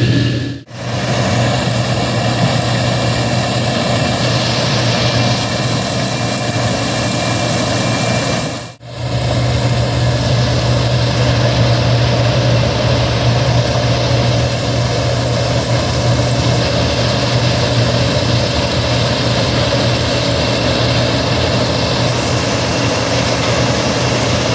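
Heavy harvest machinery engine running steadily with a strong low hum. The sound drops out briefly twice, once shortly after the start and once about a third of the way in.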